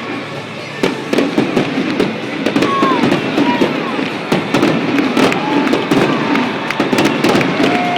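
Fireworks show: a rapid, irregular run of sharp cracks and bangs, with a few short whistles gliding in pitch.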